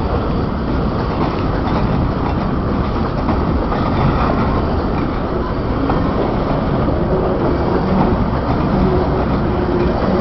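Freight train boxcars rolling past on the track: a steady loud rumble and rattle of steel wheels on rails, with a few faint wheel squeals in the second half.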